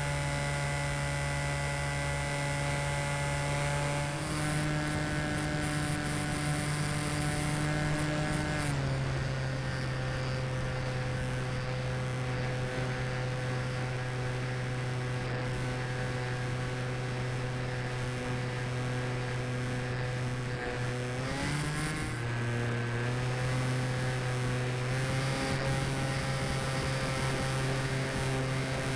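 Falcon Evo RC model plane's motor and propeller heard from its onboard camera: a steady hum that steps up in pitch about four seconds in, drops back around nine seconds, and glides up again a little after twenty seconds as the throttle is changed.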